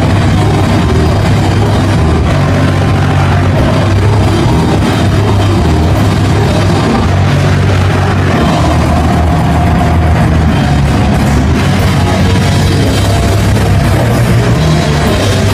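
Live rock band playing loud with electric guitars, bass and drums, heard from on the stage.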